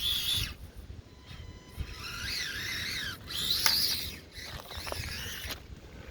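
Axial SCX24 1/24-scale RC crawler's small electric motor and gears whining in four throttle bursts, pitch rising and falling, as it drives through mud.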